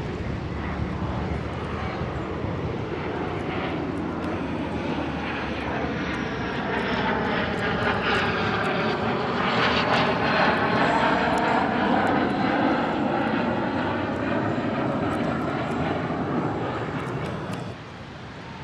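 Jet aircraft flying past, its roar swelling to a peak about halfway through and then fading, with a sudden drop near the end.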